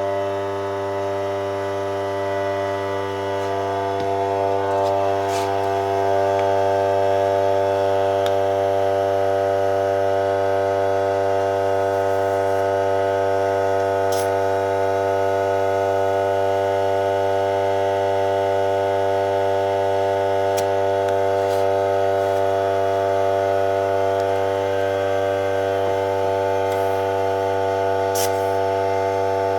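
Electric air compressor running with a steady, even hum, filling a bicycle tube. It rises slightly over the first few seconds and then holds level, with a few faint clicks.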